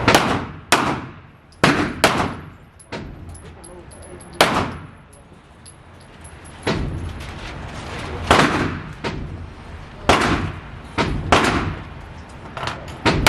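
Gunshots at a shooting range: about a dozen sharp reports at irregular intervals, some close together and some several seconds apart, each with a short ringing tail.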